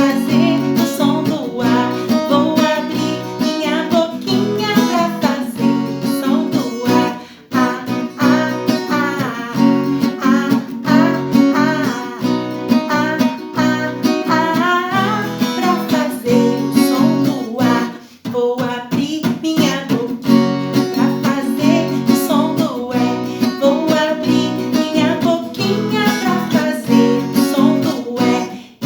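Children's song: strummed acoustic guitar with a voice singing over it, pausing briefly twice.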